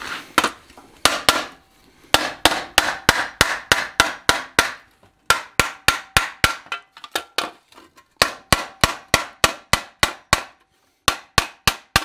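Hand hammer striking a 14-gauge sheet-steel shovel blade over the anvil, worked cold, in runs of quick blows about four or five a second with short pauses between, each blow ringing briefly.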